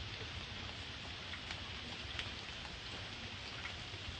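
Steady rain falling, with scattered ticks of single drops striking close by.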